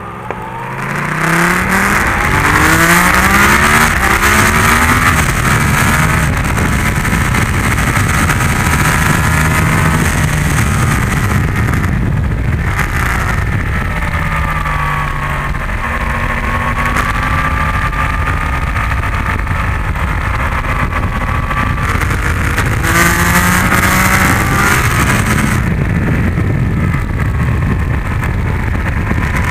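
Yamaha MT-10's crossplane inline-four engine accelerating hard through the gears, its pitch climbing and dropping back with each quick upshift. It then rises and falls through the corners at track speed, with heavy wind rush over the microphone.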